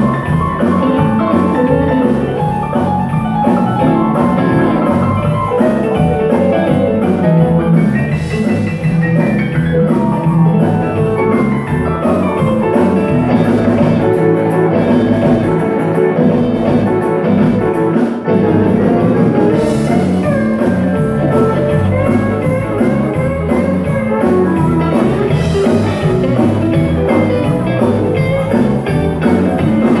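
Live band playing dance music on electric guitars, keyboards and drum kit.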